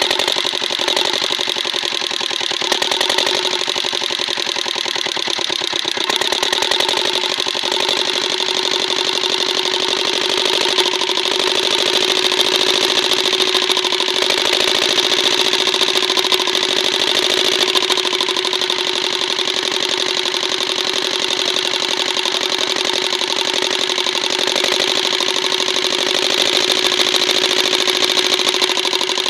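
Kirloskar Comet single-cylinder diesel pump-set engine running steadily with a fast, even chugging beat, on its first run after a rebuild with new piston rings and a new head gasket.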